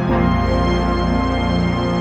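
Background music: sustained, dark synthesised chords with a deep bass, changing chord right at the start and at the end.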